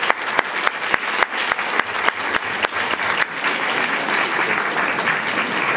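Audience applauding. In the first two seconds a few loud, separate claps from hands close by stand out over the even patter of the rest.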